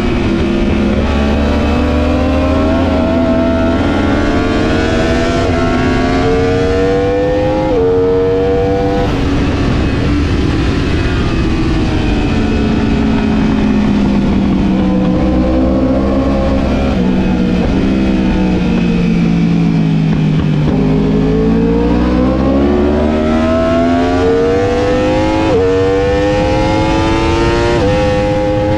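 Onboard sport bike engine at full throttle, its pitch climbing and dropping sharply at each quick upshift, then winding down through a braking zone and corner before pulling up through the gears again. Heavy wind noise runs underneath.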